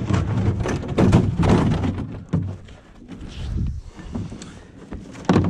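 A Pelican Trek 75 plastic sleigh being turned over by hand and set down on packed snow: hollow plastic thunks and scraping, busiest in the first couple of seconds, with a sharp knock near the end.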